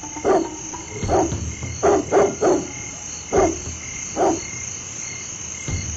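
Frogs croaking at night, seven short croaks at uneven intervals over the first four and a half seconds, over a steady high hiss.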